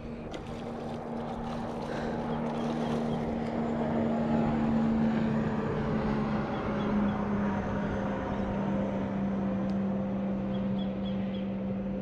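A boat engine running steadily, a low even hum with overtones, over a haze of wind and water noise, with a few light clicks in the first second or so.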